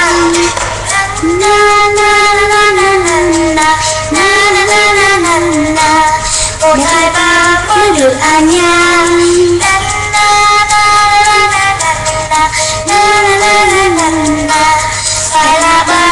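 A woman singing a cheerful children's milk jingle along with an upbeat pop backing track.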